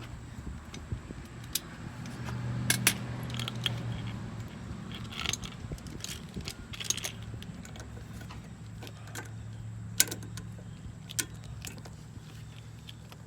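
Scattered metallic clicks and light clinks of hand tools on the motorcycle's rear axle nut and cotter pin as the pin is fitted and bent over, with a sharp click about ten seconds in. A low steady hum runs underneath.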